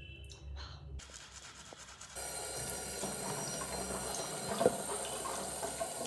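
Water running from a bathroom tap into a sink, starting faintly about a second in and growing louder and steady about two seconds in, with a brief splash a little past the middle as water is splashed onto the face.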